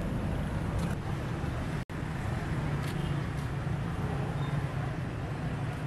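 Road traffic noise: a steady rumble of passing vehicles, broken by a brief dropout about two seconds in.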